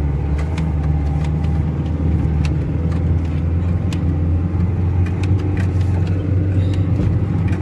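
A 4x4's engine running steadily under load, heard from inside the cab, as the vehicle is pulled by a tow strap up a snowy track. Scattered sharp ticks and knocks sound over it.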